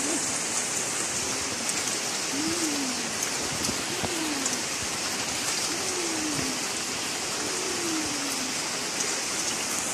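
Steady heavy rain falling, with a bird cooing a few times over it in low, falling calls.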